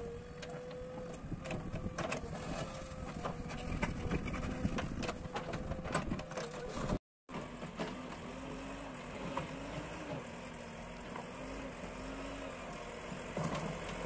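JCB backhoe loader's diesel engine running steadily, with sharp clicks and clatter of gravel and stones as the backhoe bucket digs. About halfway the sound drops out for a moment, then the engine runs at a lower, wavering pitch while the front loader bucket pushes and scrapes soil along the ground.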